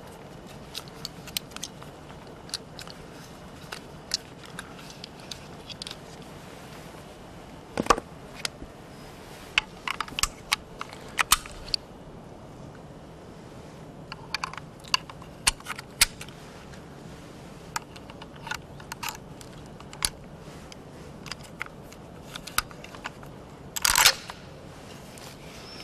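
Scattered sharp clicks and small metallic knocks of rifle cartridges and a scoped hunting rifle being handled. A louder brief clatter from the rifle comes near the end.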